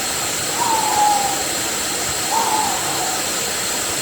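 Waterfall's steady rush of falling water, with a bird repeating a short falling whistle about every second and a half.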